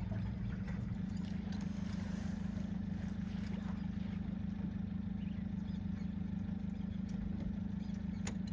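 A boat's motor running steadily, a constant low drone, with a single short click near the end.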